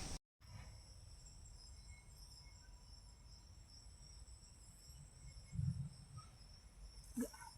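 Faint, steady high-pitched chirring of insects such as crickets, with a soft low thump a little past halfway.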